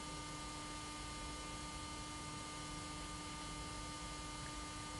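Steady background hum and hiss of the room and recording, with a few faint steady tones.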